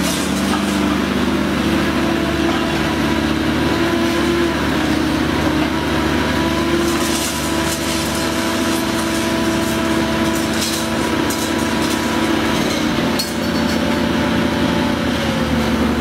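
Taurus 1100-ton hydraulic shear baler running under load, with a steady, even hum from its hydraulic system. Scrap rebar clinks and rattles now and then as the ram presses it through.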